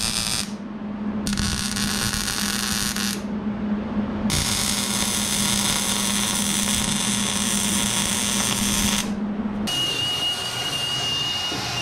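MIG welding with a Hobart 140 welder: three bursts of crackling arc over a steady hum, the last and longest about five seconds. About ten seconds in the welding stops and a cordless Milwaukee Fuel power tool starts with a high, steady whine.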